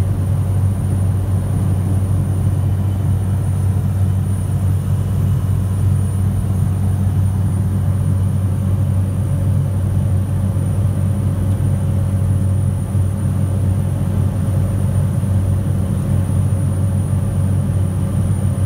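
Cessna Caravan's single turboprop engine and propeller in flight, heard from inside the cockpit: a steady low drone with a thin high whine held constant above it.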